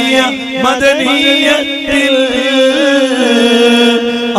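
Malayalam devotional song: a voice singing a drawn-out, chant-like melody over a steady held drone.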